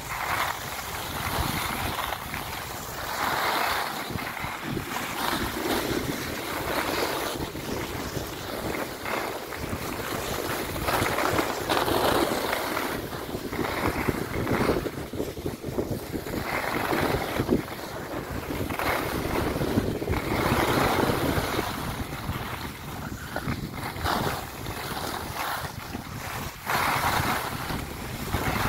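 Wind rushing over the microphone while skiing downhill, with the hiss of skis scraping across packed snow swelling at each turn, about every two to three seconds.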